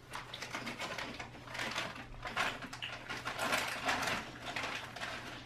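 Plastic snack bag crinkling and rustling in someone's hands, in irregular bursts, over a faint steady hum.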